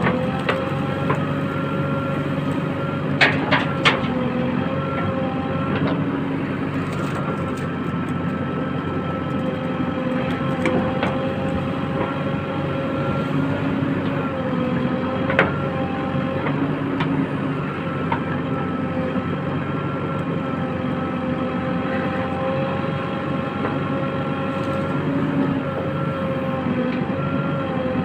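JCB 3DX backhoe loader's diesel engine running steadily under working load, with a held whine that dips slightly in pitch now and then. A few sharp clanks come about three to four seconds in and again about halfway through.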